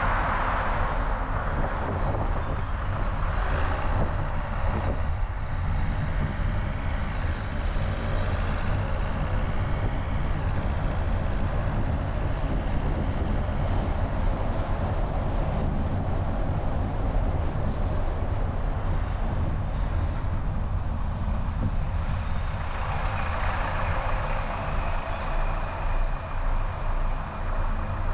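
Wind rushing over a hood-mounted camera's microphone, with engine and tyre rumble from a car on the road. The rushing swells louder twice, at the start and again about 23 seconds in.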